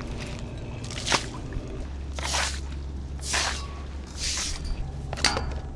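Three wet, squishing swishes about a second apart, with a couple of sharp clicks, one before them and one after.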